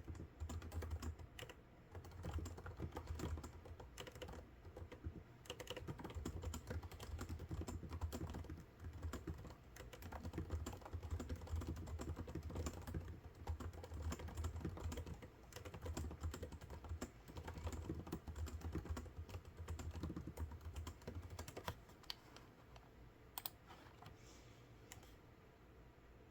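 Fast, steady typing on a computer keyboard in runs of keystrokes with short pauses between them, trailing off into a few single clicks near the end.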